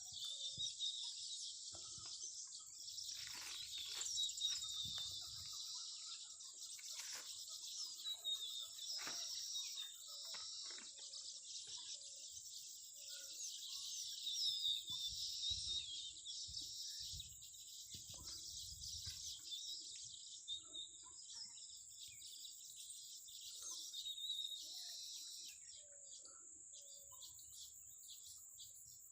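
Baby birds chirping: a dense, continuous chatter of high, thin cheeps over a steady high hiss.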